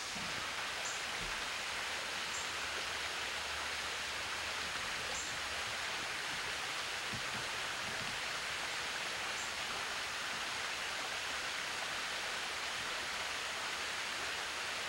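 Shallow creek water running over a riffle, a steady even rush.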